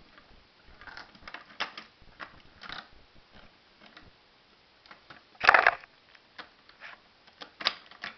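Plastic Lego bricks of a homemade gumball machine clicking and knocking as it is handled, with one louder clatter about five and a half seconds in.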